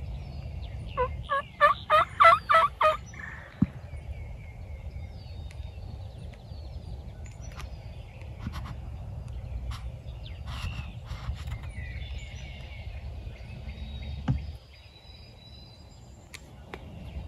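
A wild turkey gobbler gobbling once, about a second in: a loud, quick rattling run of notes lasting about two seconds. Small songbirds chirp faintly over a low background rumble.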